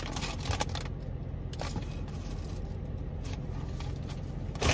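Foil and paper wrapping rustling and crinkling faintly as garlic bread is handled, over the steady low hum of a car's idling engine; the paper crinkles loudly near the end.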